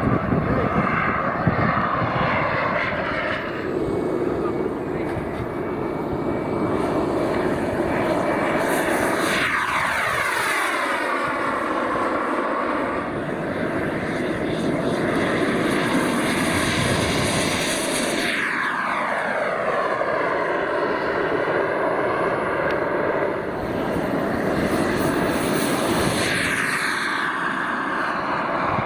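Radio-controlled model jets' engines running at high power on take-off and climb-out, a steady high whine. About three times the pitch falls steeply as a jet passes close by.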